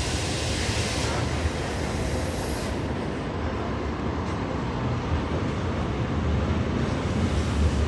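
Diesel-hauled passenger train running, heard from on board a carriage: a steady low rumble of the train in motion, with a hissing noise over the first three seconds or so.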